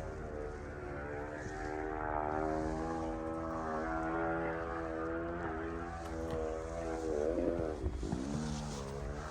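An engine's steady drone, holding its pitch for several seconds, then wavering down and back up near the end.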